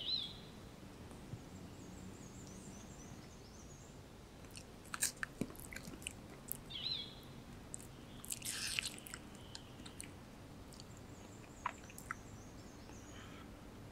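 A langur biting and chewing a piece of fruit, with crisp crunches in clusters about five seconds in and again near nine seconds. Small birds chirp in the background.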